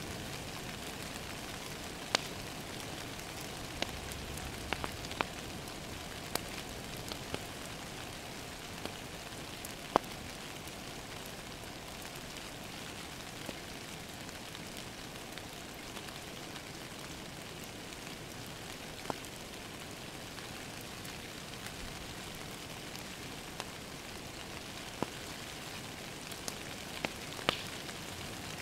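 Steady rain hitting a window, with a wood fire crackling in a fireplace and giving sharp pops every few seconds.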